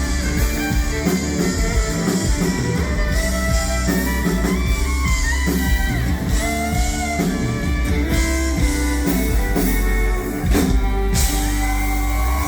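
Live country-rock band playing an instrumental break between sung verses: electric guitar with bent notes over bass guitar and drums.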